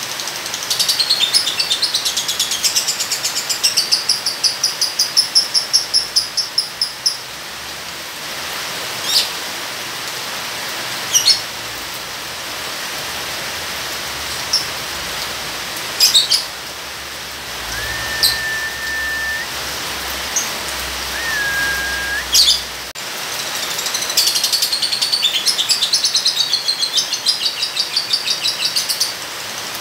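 Lovebird chattering in long, rapid trills of high chirps (the continuous 'ngekek' song), one run of about six seconds near the start and another near the end, with single sharp chirps between them. A steady hiss of rain runs underneath, and two short flat whistled notes come about two-thirds of the way through.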